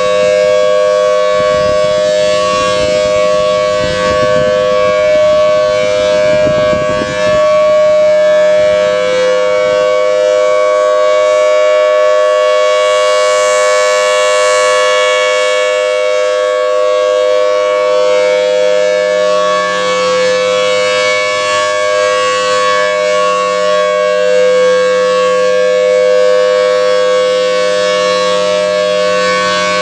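Federal Signal Thunderbolt 1000T rotating warning siren sounding a steady dual-tone wail at full speed, its pitch holding level. The sound swells and brightens once about halfway through as the turning horn sweeps toward the listener.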